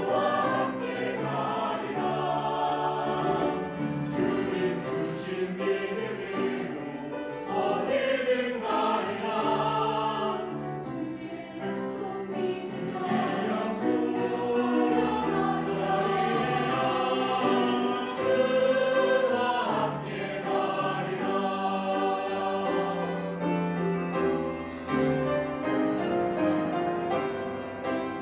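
Mixed church choir of men's and women's voices singing a Korean hymn in harmony.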